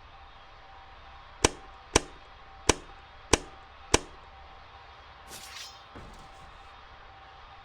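Two-bladed ceiling fan running with a steady faint hum and a thin steady tone. About a second and a half in come five sharp clicks in about two and a half seconds, then a brief rustle.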